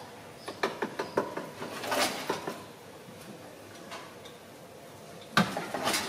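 Scattered light knocks and rattles, with the sharpest knock about five and a half seconds in, as a small monkey scrambles in a narrow gap against the side panel of a washing machine and wooden boards.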